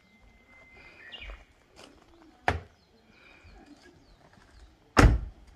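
Minivan's front passenger door swung shut near the end, a heavy thud and the loudest sound, with a sharper knock about halfway through. Birds chirp faintly in the background.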